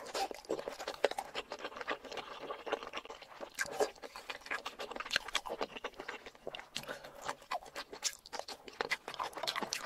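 Close-miked chewing of spicy boneless chicken feet, the cartilage giving a run of quick, irregular crunches and wet clicks.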